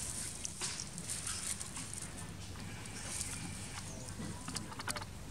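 Dry leaf litter rustling and crackling as a baby monkey walks and shuffles through it, with a quick run of sharp crackles near the end.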